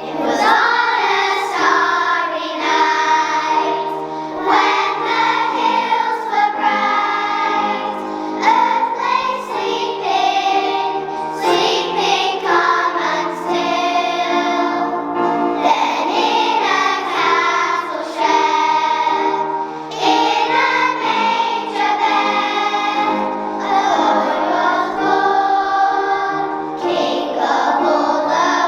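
A choir of young voices singing with instrumental accompaniment.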